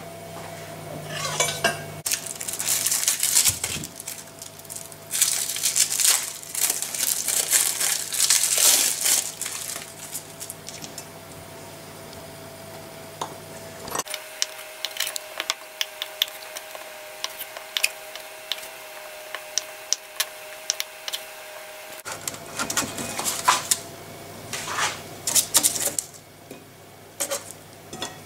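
Kitchen utensil sounds: clattering and scraping in the first part, then small repeated clicks of a knife slicing blue cheese against a stone cutting board, and near the end louder scrapes and clinks of a utensil lifting roasted pumpkin pieces off a metal baking tray into a ceramic bowl.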